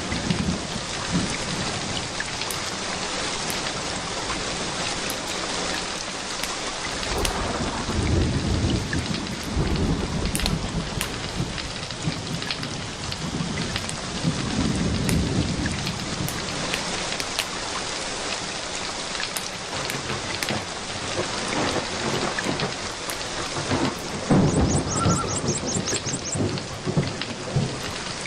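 Steady rain falling, with low rolling rumbles of thunder swelling up three times and scattered short crackles.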